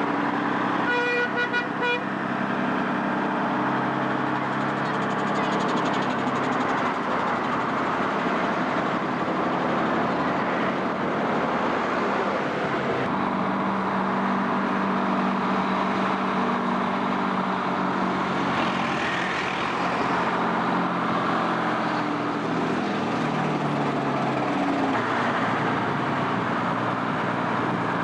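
Heavy recovery truck's diesel engine running as it tows a double-decker bus away, its note stepping up and down in pitch several times as it pulls off. A vehicle horn toots briefly about a second in, over steady street traffic.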